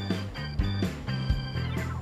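Instrumental background music with sustained bass notes and a steady beat.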